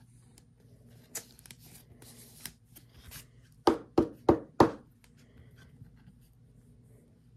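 A trading card being slipped into a plastic sleeve and rigid top loader: soft rustling and small clicks, then four quick, loud knocks about a third of a second apart about halfway through, the top loader being tapped on the table to seat the card.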